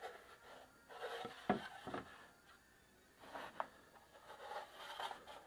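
Wooden board handled and slid on a workbench: faint rubbing of wood with a few light knocks as it is set down and shifted.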